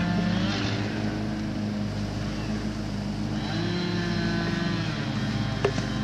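A motor engine running steadily, its note changing slightly about halfway through, with a single sharp knock near the end.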